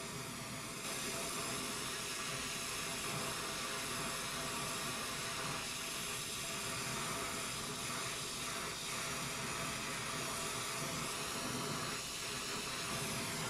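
Oxyacetylene torch flame hissing steadily while brazing a copper refrigerant line joint, slightly louder about a second in.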